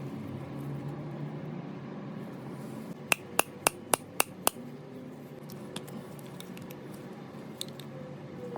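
Six light, sharp hammer taps on a metal part in quick succession, about four a second, over a steady low hum.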